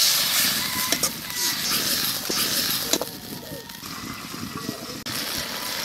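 Spice paste frying in a hot steel wok over a wood fire, a steady sizzling hiss that drops to a quieter level after a click about three seconds in.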